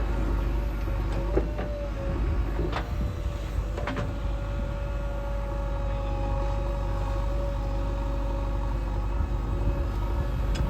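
Diesel engine of a JCB 3DX backhoe loader running steadily at work, with a held whine over the engine note and three sharp knocks in the first four seconds.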